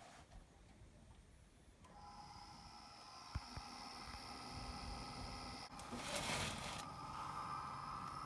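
Old Dell desktop computer powering up: about two seconds in, a steady whir of several tones starts as its fans and drives spin up, with a single click and, a few seconds later, a brief louder rush.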